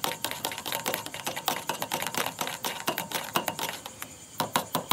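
A metal spoon stirring coffee in a double-walled stainless steel coffee-press cup, clinking quickly against the cup's sides. The clinks thin out briefly near the end, then come back as a more even run of about five a second.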